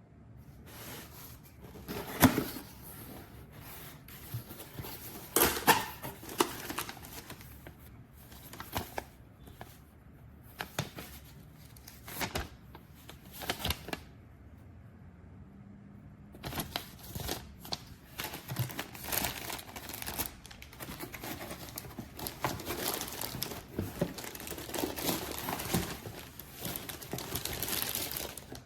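Irregular crinkling and rustling with scattered knocks as gear is handled by hand, with a short lull about halfway through.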